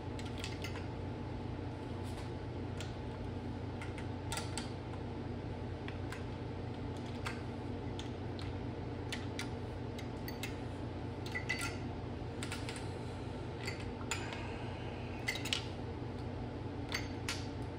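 Scattered light metallic clicks and clinks of VTEC rocker arms and the aluminium cam-holder assembly being handled and rocked into place on the cylinder head, over a steady low hum.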